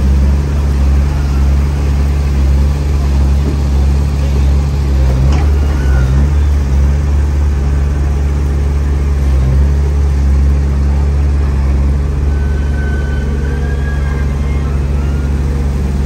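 Heavy diesel construction machinery running at a steady, loud low drone, with a single knock about five seconds in.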